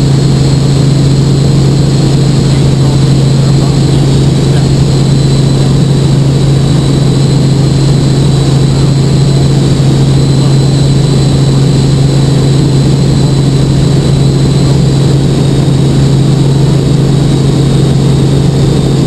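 Light helicopter in cruising flight, heard inside the cabin: the engine and rotors make a loud, steady drone with a strong constant low hum.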